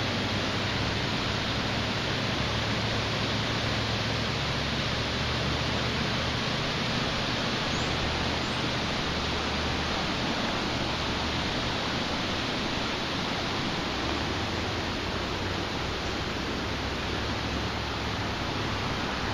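Steady rushing of a swollen, flooded river, an even roar that holds at the same level throughout.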